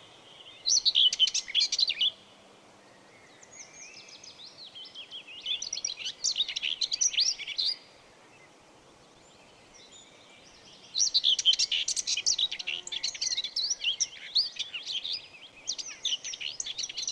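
Songbirds chirping and singing in bursts of quick, high twittering phrases: a loud bout about a second in, another in the middle, and more continuous chirping in the last third.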